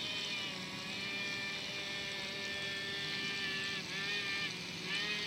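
Radio-controlled fishing boat's electric motor running with a steady high-pitched whine, its pitch dipping briefly and climbing back twice near the end.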